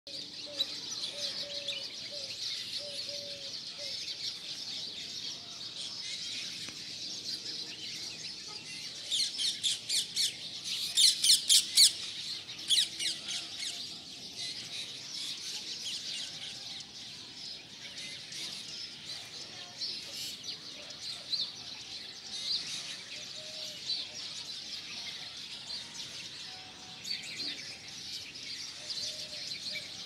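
Morning chorus of many birds chirping and twittering without a break. From about nine to twelve seconds in comes a louder run of rapid, sharp high calls.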